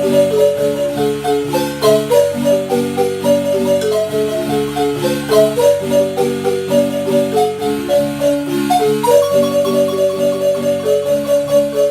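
Marimba playing a tune: a struck melody line over a steady, rhythmic bass and chord accompaniment, with a held note from about nine seconds in.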